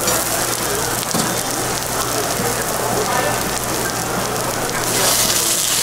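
Sliced onions sizzling on a hot flat-top griddle, a steady frying hiss, with a brief tap of metal tongs about a second in. The sizzle grows louder near the end.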